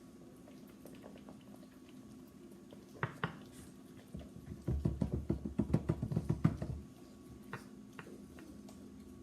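Thickening homemade slime being stirred fast in its container: a rapid run of squelching, knocking strokes, about ten a second for some two seconds, after two short clicks. A steady low hum runs underneath.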